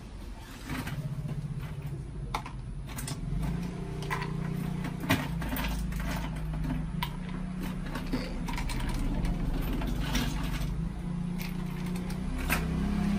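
Ice cubes clinking and clacking as they are scooped from an insulated ice bucket into a plastic cup, in separate sharp knocks, over a steady low hum.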